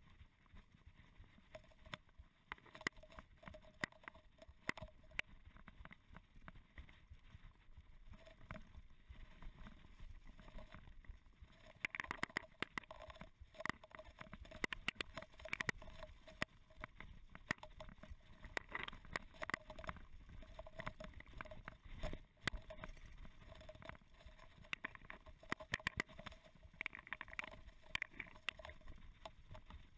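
Mountain bike rattling and knocking as it rolls fast downhill over a rough, leaf-strewn dirt trail: a steady run of irregular clicks and bumps that grows busier and louder about twelve seconds in.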